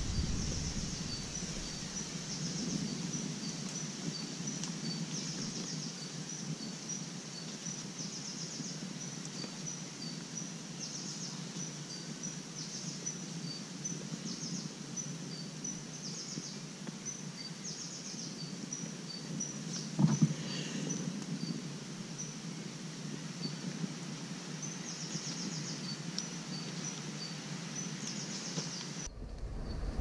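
Forest ambience of birds and insects: short high chirps repeating steadily at two alternating pitches, with bursts of rapid high trilling every few seconds. A single sharp knock about twenty seconds in.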